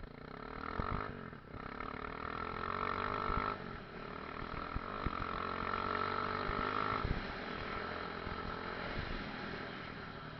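Enduro motorcycle engine running as the bike is ridden, the revs rising and dropping off a few times.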